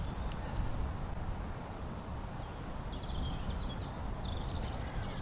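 Outdoor ambience: a low wind rumble on the microphone, with a few short, high bird chirps about half a second in and again between three and four seconds in.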